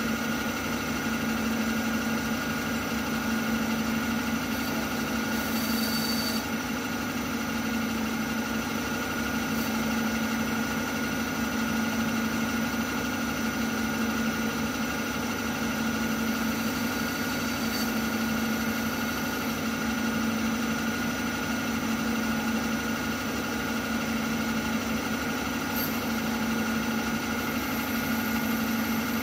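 CNC milling machine spindle running steadily while it turns a small brass part as a lathe, a constant motor hum and whine. A brief high hiss comes about six seconds in.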